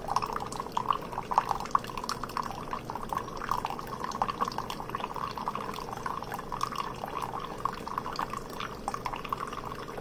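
Thin stream of coffee from a Keurig K-Express single-serve brewer trickling steadily into an enamel mug, with many small irregular splashes.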